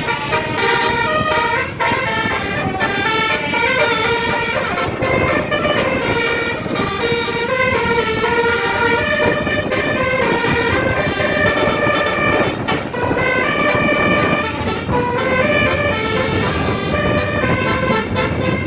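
Bus telolet Basuri horn playing a melody: several horn trumpets sounding a run of stepped notes, one after another, over engine and street noise.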